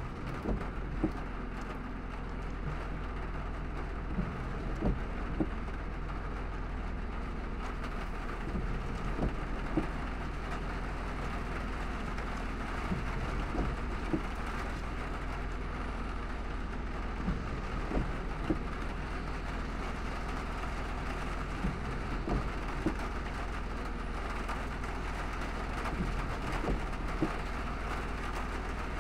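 Car driving through heavy rain: a steady wash of rain and wet-road tyre noise over a low hum, with scattered light taps.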